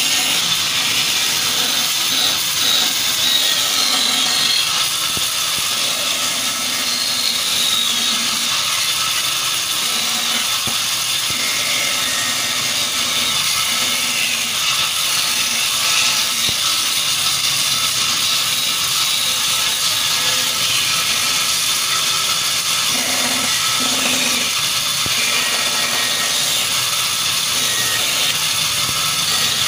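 Band saw running steadily and cutting a wooden block into a sickle handle, the blade making a continuous high-pitched hiss as it runs through the wood.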